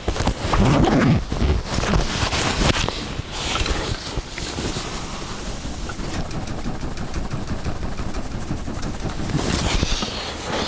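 Wind rumbling on the microphone, with the scattered sharp pops and crackles of a campfire.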